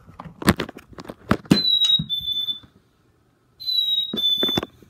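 A few knocks, then two high-pitched whistle-like tones about a second long each, the second starting about two seconds after the first; each steps slightly down in pitch partway through.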